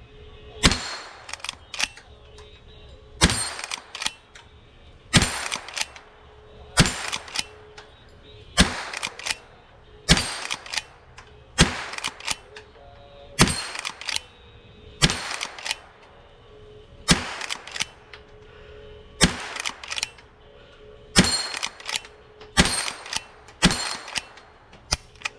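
Henry lever-action .22 LR rifle firing slowly and steadily: about fourteen sharp shots, one every second and a half to two seconds, each followed by a few softer clicks.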